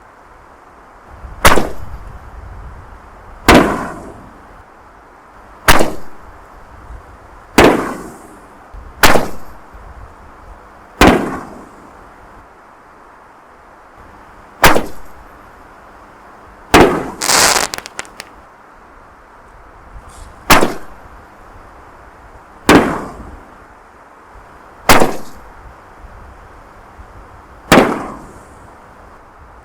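Aerial firework canister shells going off: about a dozen sharp booms, each trailing off in a short echo, roughly every two seconds. Near the middle, one burst comes with a brief spell of crackling.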